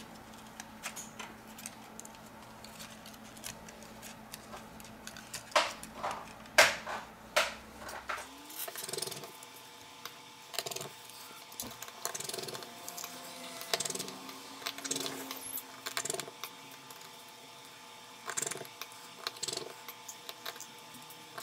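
Scattered small clicks and taps of a smartphone's plastic midframe, flex cable and small tools being handled and fitted during reassembly, with a few louder clicks a third of the way in.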